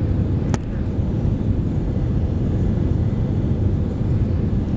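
Steady low rumble of engine and airflow noise inside the cabin of an Airbus A320-214 with CFM56 engines, heard from a window seat near the wing. A single sharp click sounds about half a second in.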